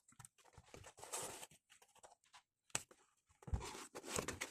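Hands working inside a keyboard's box, with irregular rustles and scrapes of packaging foam and cardboard, a sharp click near the middle and a low thump about three and a half seconds in.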